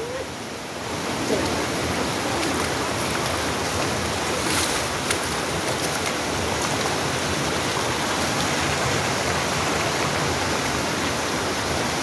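Shallow, rocky river rushing steadily over stones and small rapids, a continuous noise of flowing water that grows a little louder about a second in.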